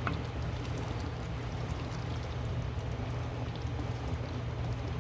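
Kitchen cooking noise: a steady low hum under a fine hiss, with a few faint clicks.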